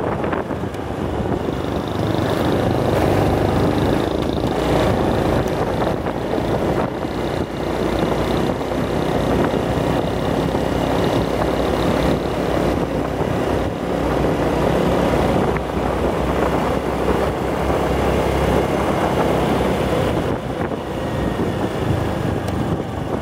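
On-board riding noise of a Honda motor scooter travelling along a road: the engine running steadily under a continuous rush of air and road noise.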